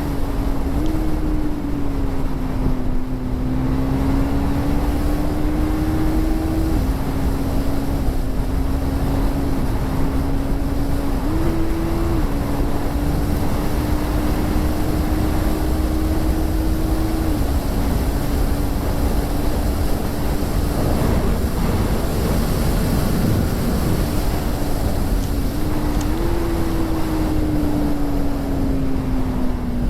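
KTM 390 Duke's single-cylinder engine with its stock exhaust running at speed under way, buried in heavy wind rush on the microphone. A steady tone in the engine note steps up and down in pitch a few times as the revs change.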